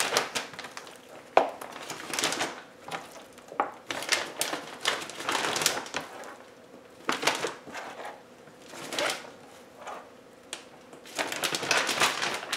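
Plastic FoodSaver vacuum-sealer bag crinkling in irregular bursts as raw chicken wings are put into it by hand, with a sharp tap about a second and a half in.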